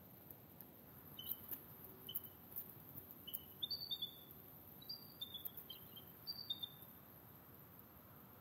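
Bald eagle calling: scattered short, high-pitched chirps, several coming in quick runs of two or three stepped notes.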